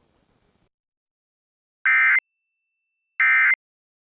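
Emergency Alert System end-of-message (EOM) data bursts: short, harsh, screechy digital tones, twice about a second apart. The first comes about two seconds in, after a near-silent pause. They signal the close of a relayed Tornado Watch alert.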